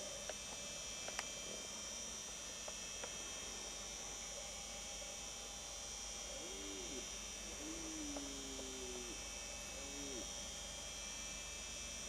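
Three faint animal calls over a steady high whine: a short call past the middle, a longer call about a second and a half long that falls slightly, then another short call.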